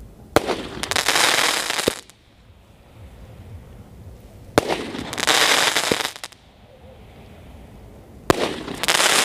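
Shots from a 12-shot aerial firework cake: three times, about four seconds apart, a sharp bang followed by about a second and a half of dense crackling.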